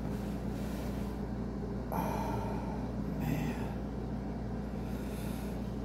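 A few short, breathy exhalations from a man in pain, about two, three and five seconds in, over a steady low electrical hum.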